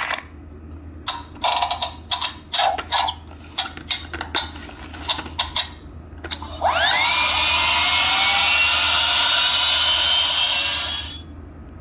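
Airplane toy sound book playing its effects through a small, tinny speaker: several seconds of short choppy sound bursts, then about 6.5 seconds in an engine whine that rises quickly and holds steady for about four seconds before cutting off.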